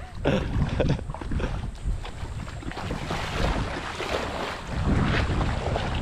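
Wind buffeting the camera microphone: a gusting low rumble that rises and falls.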